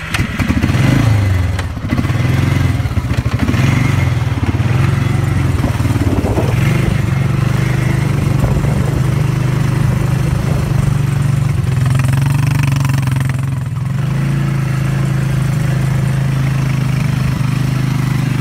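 ATV engine running steadily under load while the ATV wades through water about two feet deep, its front wheel churning and splashing the water.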